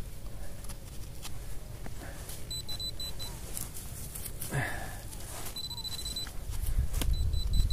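High-pitched electronic beeping from a metal-detecting pinpointer, sounding in short spells, one of them a quick run of beeps, as it is held near buried metal. Scattered knocks and scrapes of digging in the soil run underneath.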